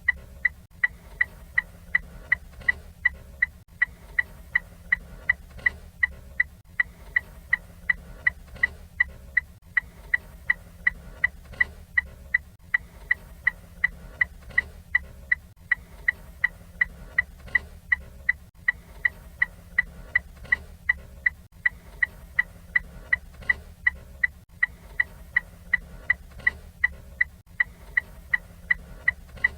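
Ford Fiesta turn-signal indicator ticking: sharp, evenly spaced clicks, about two to three a second, each with a short high ring.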